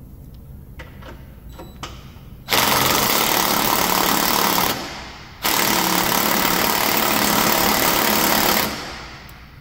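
Cordless impact gun hammering on a caster wheel's nut in two bursts, about two seconds and then about three seconds long with a short pause between, after a few light clicks of tool handling. The nut does not break loose, and the mechanic turns to a ratchet or a half-inch impact gun instead.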